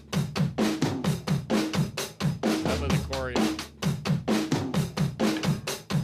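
Music for a radio break: a drum kit plays a fast, steady beat of about five hits a second over a bass line.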